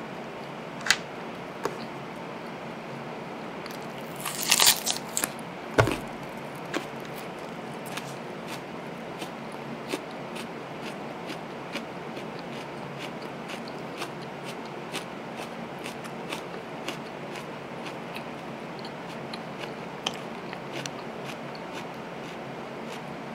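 Close-miked eating of a hamburger: a crunchy bite about four to five seconds in and a single thump just after, then steady chewing with many small wet clicks.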